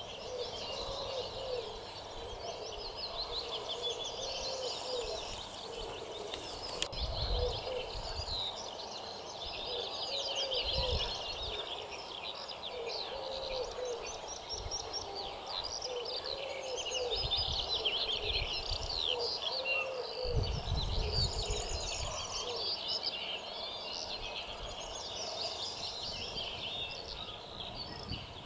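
Spring dawn chorus of many small songbirds singing and twittering at once, with a low, humped call repeating every second or two beneath it. A few low rumbles come and go.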